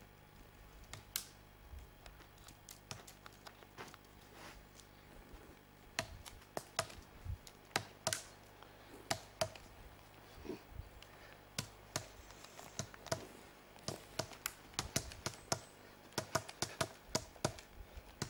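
Nunchaku being swung and caught: a string of short, sharp, irregular clicks and taps as the sticks knock together and slap into the hands and body. The clicks are sparse at first and come much faster from about six seconds in.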